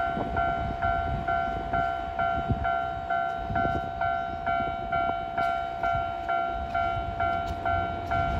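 Japanese railway level-crossing warning bell ringing its electronic 'kan-kan' tone, about two strokes a second, with a low rumbling noise beneath that grows louder near the end.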